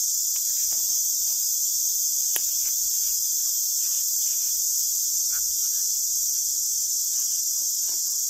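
Steady high-pitched insect chorus, unbroken throughout, with a few faint clicks and one sharper click about two seconds in.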